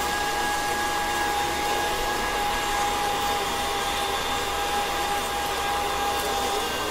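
KitchenAid stand mixer running steadily with its meat grinder attachment, a constant motor hum under a steady high whine.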